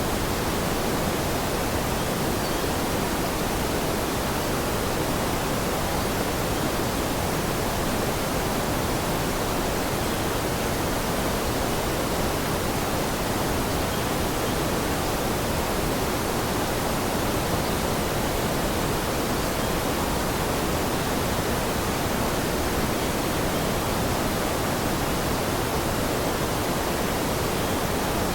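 Steady rushing water: an even, unbroken hiss with no distinct drops or splashes.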